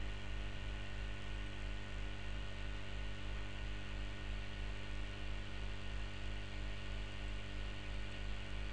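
Steady electrical mains hum with a low buzz and background hiss, unchanged throughout.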